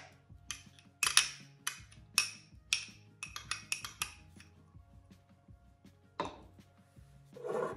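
Metal teaspoon tapping and scraping against small ceramic bowls, knocking garlic-ginger paste into a larger bowl: a quick run of sharp clinks over the first four seconds, then two louder knocks near the end, over faint background music.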